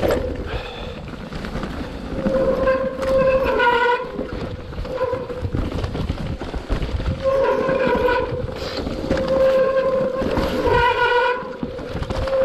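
Mountain bike disc brakes squealing in a series of bursts, a held tone with overtones, over a rough low rumble from the tyres on the trail.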